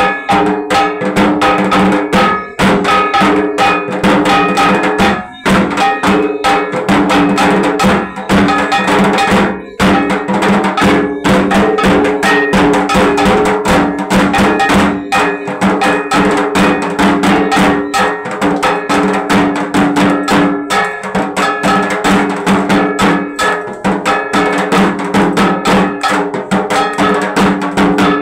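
Dhak drums beaten in a fast, continuous festival rhythm, with a metal percussion instrument clanging steadily along.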